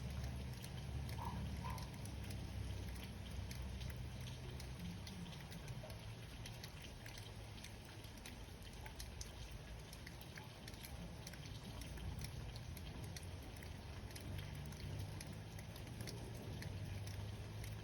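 Light rain pattering, with scattered drops ticking on surfaces, over a low steady rumble.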